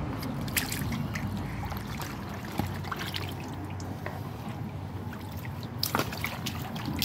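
Water sloshing and splashing in a shallow kiddie pool as a baby's feet are dipped and kick in it, with scattered small splashes.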